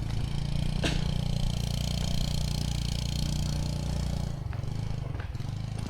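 A small engine running steadily with a faint high whine above it, dropping away about four seconds in. A single sharp knock sounds about a second in.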